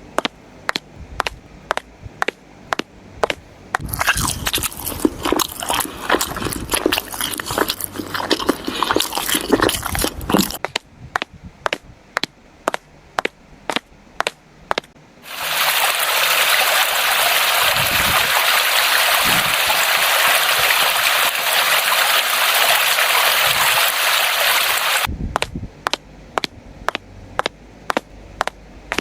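Water gushing steadily for about ten seconds in the second half, after a stretch of sloshing and clatter, over an even ticking about three times a second.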